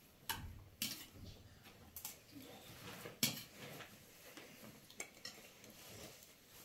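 Spoons clinking against plates as rice is served at a meal: a handful of faint, scattered clinks.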